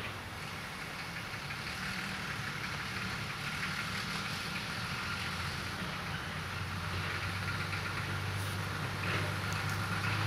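Diesel engine of the DM-13, a small rail maintenance motor car, running steadily as it hauls a flatcar carrying a mini excavator along the track, growing louder as it draws near. A few faint clicks come near the end.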